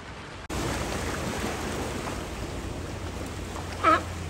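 Ocean surf washing against rocks as a steady rushing wash, stepping up in level about half a second in. About four seconds in there is one short, loud animal call.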